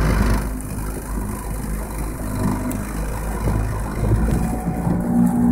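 A small boat's motor running steadily under way, a low even engine hum.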